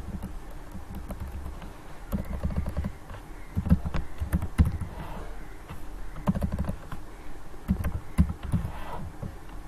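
Computer keyboard typing: scattered keystrokes in irregular clusters with short pauses, over a low steady hum.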